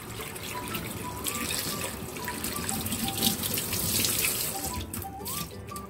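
Kitchen tap running into a sink while a bowl of chestnuts is rinsed under it, a steady splashing that swells in the middle.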